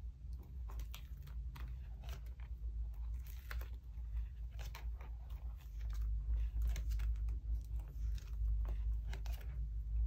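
Clear plastic binder pocket sleeves crinkling and clicking as a photocard binder's pages are handled and turned by hand, in irregular rustles and taps. A steady low hum runs underneath.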